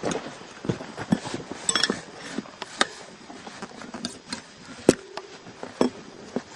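Metal tools clinking and knocking against a motorcycle wheel rim as the tyre and tube are worked back on, in irregular sharp clicks, the loudest about five seconds in.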